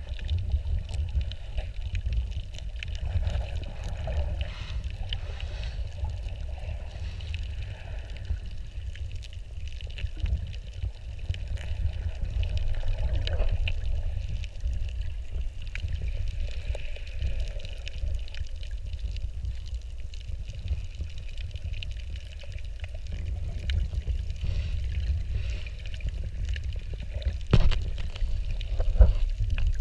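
Underwater ambience picked up by a submerged camera: a steady low rumble of moving sea water with many faint scattered clicks and crackles, and a couple of sharper knocks near the end.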